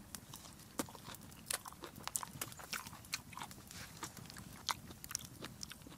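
A person chewing ash-covered bacon close to the microphone: many small, irregular crunches from the gritty ash and char.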